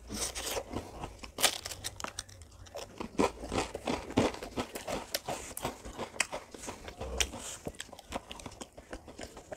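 Close-miked eating of ice cream: irregular crunching bites and chewing, a dense run of sharp clicks with the loudest bites about a second and a half, three and four seconds in.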